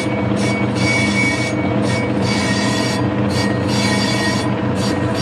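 Metal lathe turning the inside of a cast model-engine flywheel at slow speed, with the tool cutting in a steady scraping squeal over the machine's hum. The cutting noise dips and returns in a repeating pattern about every second and a half.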